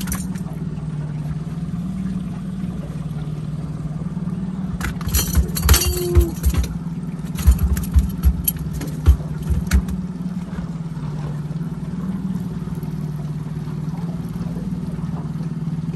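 Boat motor running steadily at trolling speed, a constant low hum. A run of sharp knocks and clatters comes about five to ten seconds in.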